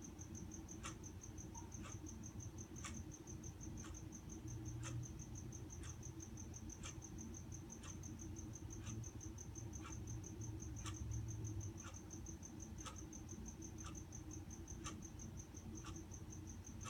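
An insect's steady, high-pitched trill, pulsing rapidly without a break, with a sharp tick about once a second and a low hum underneath.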